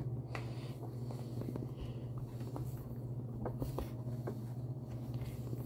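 Faint scattered taps and clicks of a large silicone pop-it fidget toy being handled and moved, over a steady low hum.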